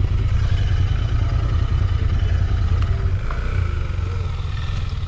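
Royal Enfield Interceptor 650's parallel-twin engine idling steadily under the rider.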